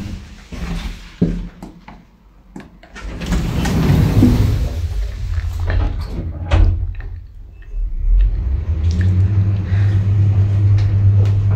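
Kone passenger lift: its sliding doors close with knocks and clicks, then the car sets off downward with a steady low hum from about eight seconds in.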